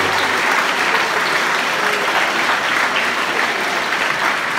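A hall full of schoolchildren applauding with steady, even clapping.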